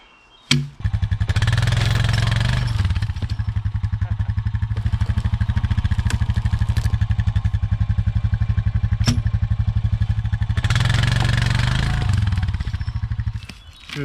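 ATV engine running steadily with a fast, even beat. It rises briefly twice, once near the start and once near the end, then cuts off just before the end.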